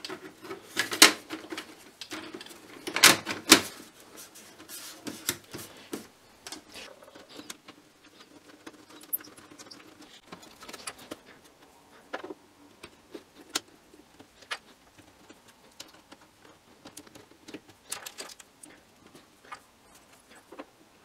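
Front panel of a Philips N7150 reel-to-reel tape deck being fitted back on and its knobs pushed into place: scattered clicks, taps and light rattles of panel and parts, with the loudest knocks about a second and about three seconds in.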